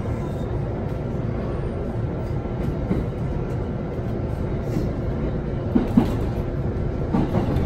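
JR E231 series 800-subseries commuter train running, heard inside the passenger car: a steady rumble of the wheels on the track with a faint steady hum. A couple of brief knocks come about six seconds in, and again just after seven seconds.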